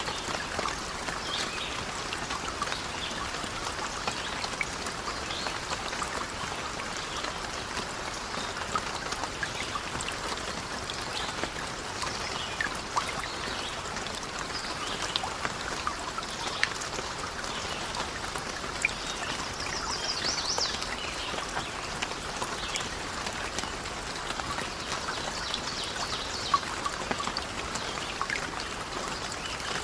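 Steady rain with scattered drop ticks, and a few brief high chirps about two-thirds of the way through.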